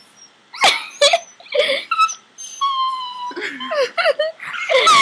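Small dog yelping and whining as it is held up, in short sharp cries and a drawn-out squeal. These are mixed with people's playful squeals and laughter, loudest near the end.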